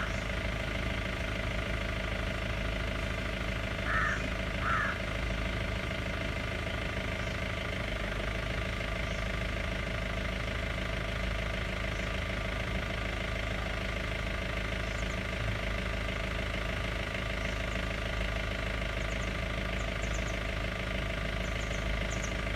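A vehicle engine idling steadily, with two short high-pitched chirps about four and five seconds in.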